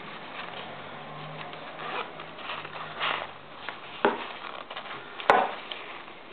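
Handling of a cell-phone pouch: rubbing and rustling of the case with a few soft knocks, and one sharp click about five seconds in.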